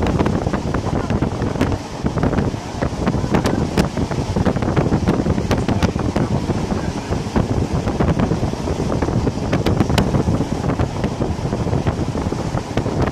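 Wind rushing over the microphone at an open window of a moving passenger train carriage, with the steady rumble of the train running along the track and scattered irregular clicks and rattles.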